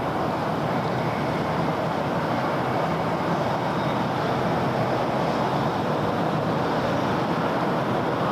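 Steady city road traffic noise: a continuous even wash of passing cars with no single vehicle standing out.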